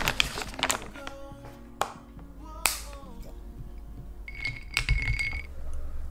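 Soft background music, with the crinkle of a plastic coffee-portion bag being torn open at the start, then a few sharp clicks and a short high tone about four and a half seconds in.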